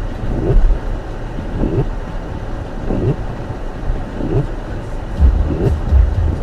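Car cabin road noise in snow, with the windshield wipers sweeping back and forth about every 1.3 seconds, five times. The low tyre and road rumble grows heavier near the end.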